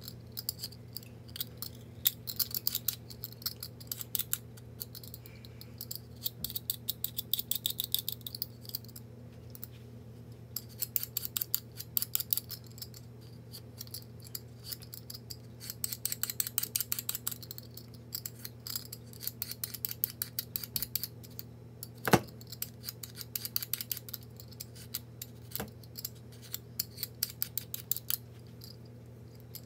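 Kitchen knife cutting carrots on a cutting board, played at double speed: runs of quick, sharp chopping taps with short pauses between them, and one louder knock about two-thirds of the way through.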